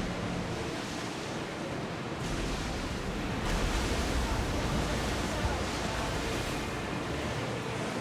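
Sea waves washing steadily, with wind on the microphone adding a low rumble that swells about two seconds in.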